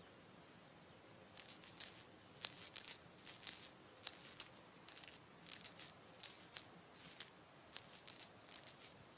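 A shaker rattling in a steady rhythm, mostly in pairs of quick shakes repeating a little faster than once a second, starting about a second in.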